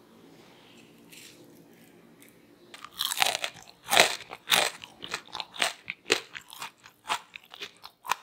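Crispy fried smashed potatoes crunching loudly as they are bitten into about three seconds in, then chewed with a run of quick, regular crunches.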